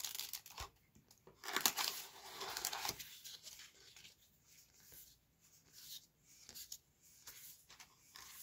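A stack of paper trading cards being handled: cards slid one at a time off the front of the pile and across each other, with dry brushing and scraping, loudest for a second or so near the start and softer and sparser after.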